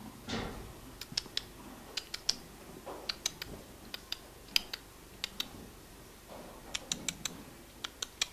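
Sharp, irregular clicks, some coming in quick pairs, after a muffled bump at the start.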